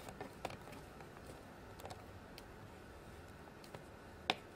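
Faint small taps and clicks of fingers pressing modeling dough into a plastic toy pizza oven mold, with one sharper click about four seconds in.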